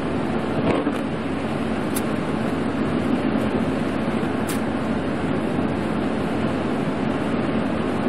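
Steady road noise inside a pickup truck's cab on a wet, snowy highway: tyres hissing on the slush, the engine running and the defroster fan blowing, with a couple of faint ticks.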